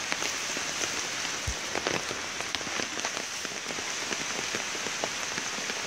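Rain falling steadily on shallow standing floodwater: a dense patter of drops, with scattered louder single drops standing out.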